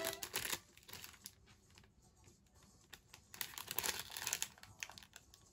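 Plastic snack-cake wrapper crinkling and crackling as it is handled, in short irregular clicks, busiest about four seconds in.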